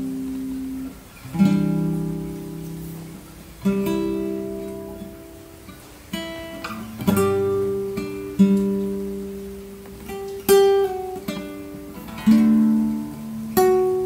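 Acoustic guitar music: slow strummed and plucked chords, each left to ring and fade before the next.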